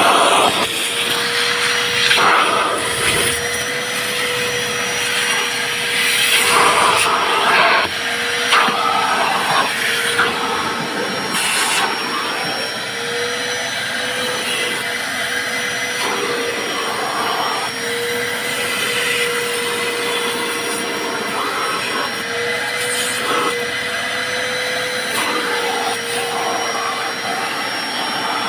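Vacuum cleaner running steadily, its motor giving a constant whine over a rushing noise, with short patches of louder rushing scattered through while it is used to clean the car.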